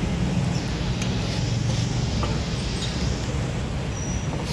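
Steady low rumble of outdoor background noise, with a few faint light clicks on top.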